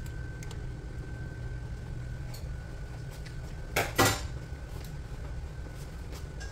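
Two quick clanks of metal cookware knocking together, about four seconds in, over a steady low hum and a faint steady high whine.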